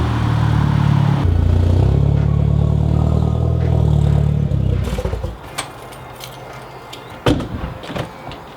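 Tuned Audi A3 8P car engine running loud and steady, its note shifting once about a second in, then dropping away about halfway through. After it come scattered light clatter and one sharp knock near the end.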